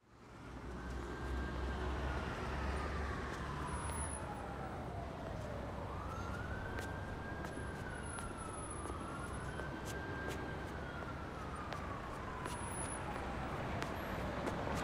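Emergency-vehicle siren wailing, each cycle rising quickly and then falling slowly over about four seconds, three times over, above a steady low city rumble.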